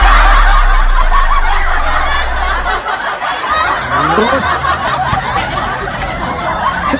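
Many people laughing together, a loud dense wash of voices that breaks out suddenly just before and slowly eases off.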